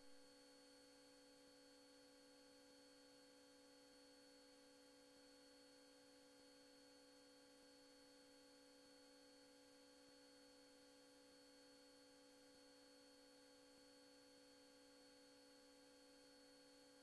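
Near silence: a faint steady hum of a few thin tones over light hiss, unchanging throughout, with no engine noise or voices.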